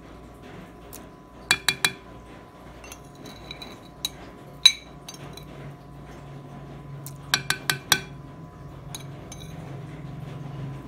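A utensil clinking against the mixing bowl while chopped garlic and onion are knocked off into the marinade: three quick taps about a second and a half in, one sharp tap near the middle, then a run of four taps later, over a faint steady hum.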